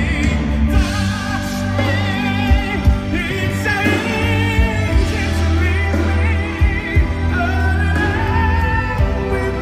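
Operatic-pop singing with strong vibrato, backed by a live orchestra with a steady low accompaniment.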